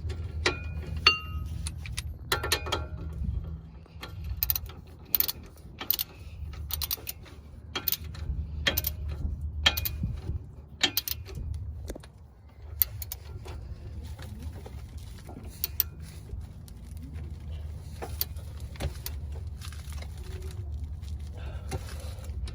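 Hand ratchet wrench clicking in short, irregular runs of strokes as the upper strut-to-knuckle bolt is tightened, over a steady low hum.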